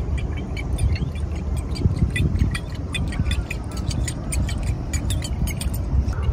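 RAID JAPAN Killer-D topwater lure retrieved across the water surface, its lipped body wobbling and churning the water with a quick, irregular clicking and splashing, several clicks a second, over a steady low rumble.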